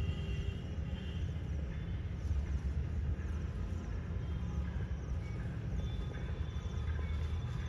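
Outdoor background sound: a steady low rumble with faint thin high tones now and then.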